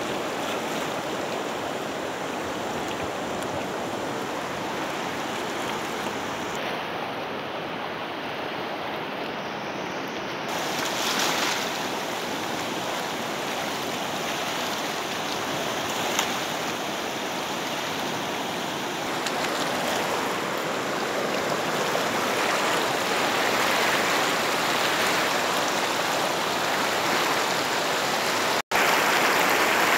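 Fast river water rushing over rocks and boulders in a steady rush, louder toward the end, with a momentary dropout near the end.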